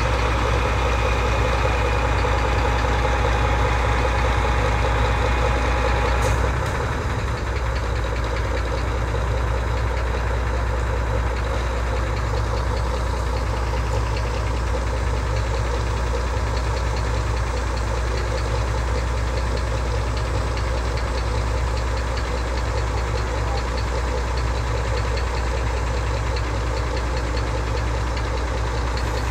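Diesel engine of a tipper truck running steadily while the dump body's hydraulic hoist is worked. A higher whine over the engine stops about six seconds in, and the engine settles to a steady idle.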